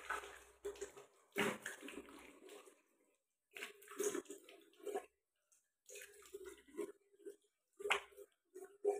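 Splashing water from a running tap onto the face over a sink, with dripping, in uneven bursts separated by short pauses.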